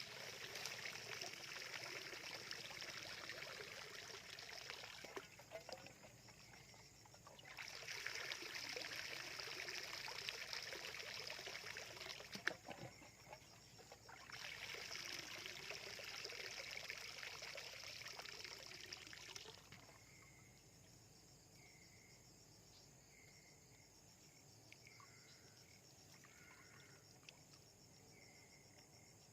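Water sloshing and trickling in three spells of about five seconds each, with a sharp click in the middle spell, as a bamboo eel trap is set in paddy-field water. It then goes quieter, with short high chirps repeating.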